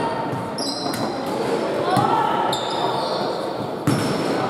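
A basketball bouncing on a hall court, with sharp knocks about 2 s in and near the end. Short high squeaks sound on the court, with players' voices in the background.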